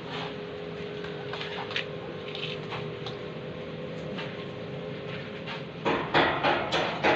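A few light clicks over a faint steady hum, then from about six seconds in a run of short scraping strokes, about three a second: a hand tool working cement-based Flexibond waterproofing mix in a bucket.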